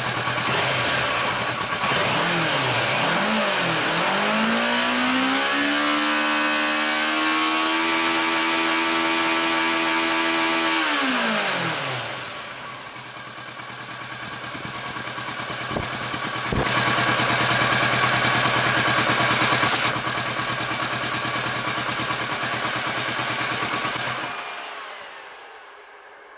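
Kawasaki Versys 650 parallel-twin engine idling, then revved up and held for several seconds before dropping back to idle. Near the end the engine is switched off.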